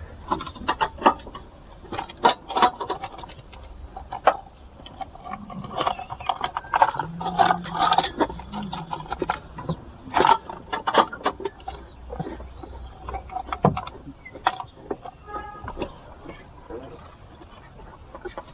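Irregular metallic clinks, clicks and knocks of hand tools and fasteners as an HVAC assembly is fitted and tightened under a car's dashboard.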